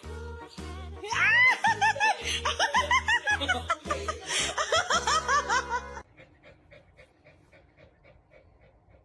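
Background music with a steady beat, over which a dog gives a rapid run of high, arching yelps for about five seconds. The music and yelps stop suddenly and only faint ticking remains.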